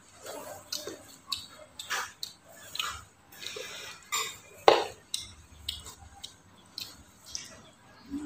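A metal spoon scraping and clinking against a ceramic plate of rice in scattered short clicks, with one sharper, louder clink about halfway through.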